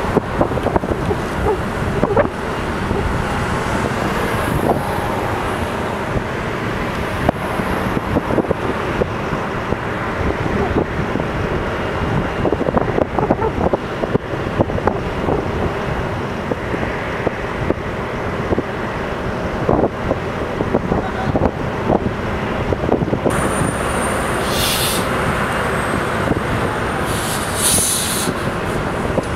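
Utility boom truck's engine running steadily to drive the hydraulic crane as it moves a broken power pole, with wind buffeting the microphone and scattered knocks. Near the end a car passes close by.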